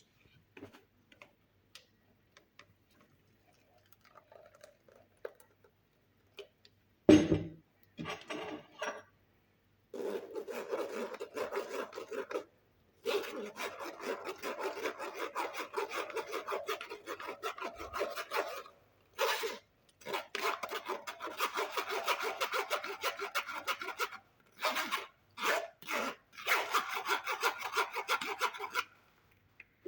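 Rapid, rhythmic rasping strokes of something rubbed hard by hand against a rough surface, in long bursts with short pauses, during juice preparation. A single sharp knock comes about seven seconds in.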